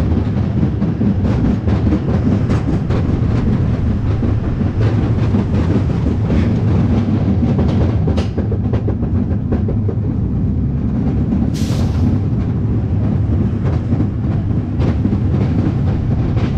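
Interpark Bullet Train steel roller coaster running along its track, heard from on board: a steady low rumble from the wheels with quick clacks at the track joints. A brief hiss comes about two-thirds of the way through.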